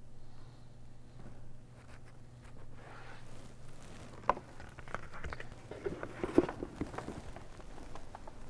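Footsteps, a few sharp knocks and scuffs between about four and seven seconds in, over a low steady hum.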